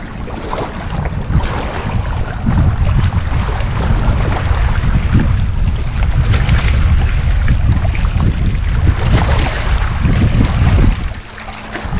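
Heavy wind buffeting the microphone, with water splashing as a hooked striped bass thrashes at the surface by the rocky bank. The wind rumble eases near the end.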